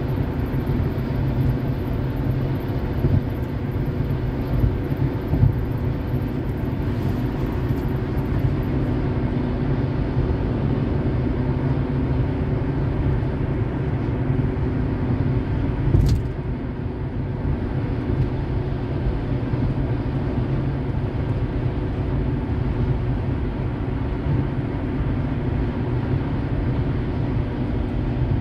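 Car driving at highway speed, heard from inside the cabin: a steady low rumble of tyres on the road and the engine. A single sharp click sounds about sixteen seconds in.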